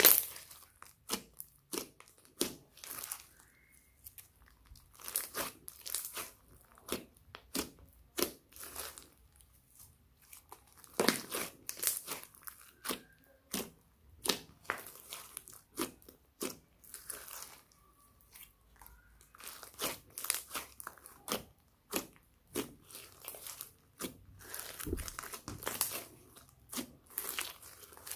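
Thick pink slime being pressed, kneaded and stretched by hand. It gives off irregular sticky clicks, pops and crackles, with a couple of brief quieter spells.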